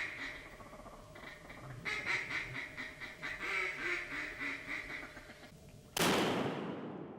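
Duck quacking in rapid strings of quacks, in two runs, then a single loud shotgun shot about six seconds in that dies away over about a second.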